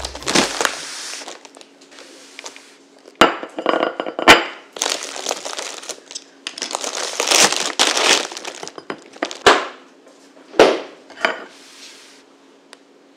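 Plastic bread bag crinkling as it is opened and a slice is taken out, with several sharp clinks and knocks of a ceramic plate and handling on the kitchen countertop.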